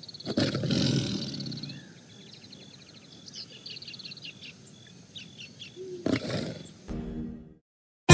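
A tiger roars about a second in and again more briefly about six seconds in, with small birds chirping between the roars. A short sustained tone sounds near the end and stops.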